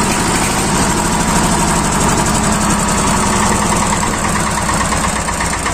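Yanmar single-cylinder diesel engine running steadily with an even, rapid beat. It runs now that air has been bled from its fuel system, the fault that had kept it from starting.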